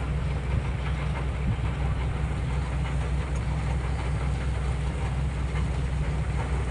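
New Holland rice combine harvester's diesel engine running steadily, a constant low rumble with mechanical clatter over it.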